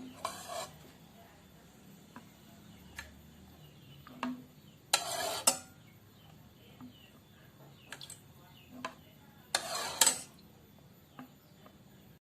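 Kitchen utensils and dishes handled: scattered light clinks and knocks, with three short, louder swishes about half a second long.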